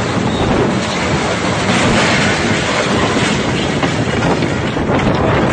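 Violent storm wind blowing hard across the phone's microphone: a loud, steady rush of noise with no let-up.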